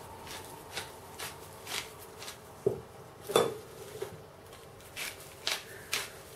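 Light clicking taps, about two a second, as salt and pepper are shaken from a small metal shaker over an enamel pot, with two louder knocks about two and a half and three and a half seconds in, the second ringing briefly.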